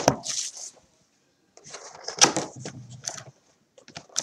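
Hands handling a retail box and foil-wrapped packs of 2016 Panini Crown Royale football cards on a table: scraping, rustling and light knocks in short bursts, with a sharp click at the start and a brief pause about a second in.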